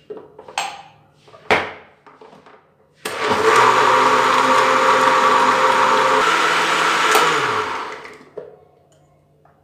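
Electric countertop blender blending milk and bael fruit pulp in a plastic jar. A few knocks as the lid is put on, then the motor starts about three seconds in, runs steadily for about four seconds, and is switched off, winding down with falling pitch.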